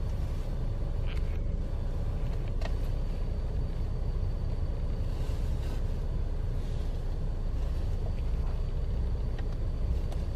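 Steady low vehicle rumble, even throughout, with a couple of faint ticks in the first few seconds.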